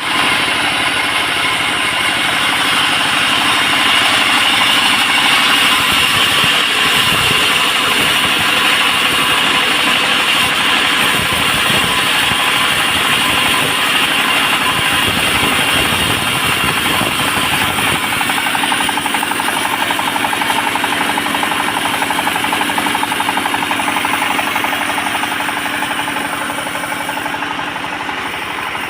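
Sawmill bandsaw cutting teak, a loud steady machine noise with a fast rattle, easing a little near the end.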